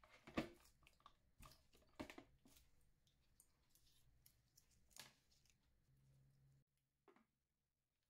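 Sparse, quiet plastic clicks and knocks from a Tefal countertop blender being handled and set up, the sharpest knock about half a second in.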